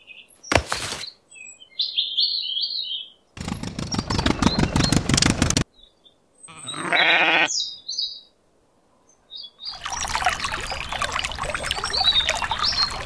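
A mix of farm sound effects: birds chirping, a short burst of noise, a single sheep bleat about halfway through, then water splashing and trickling steadily from a small tap for the last few seconds.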